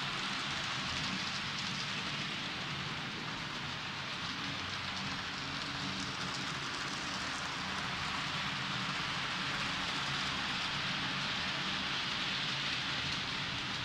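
H0-scale model train running on the layout's track: a steady, even rolling rattle of wheels on rails with a faint motor hum underneath.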